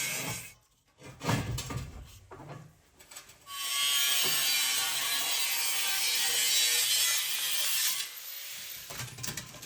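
A power tool cutting the steel shell of an old gas cylinder, in two runs: a brief one at the start and a longer one from about three and a half seconds to about eight seconds, with quieter knocks and handling in between and after.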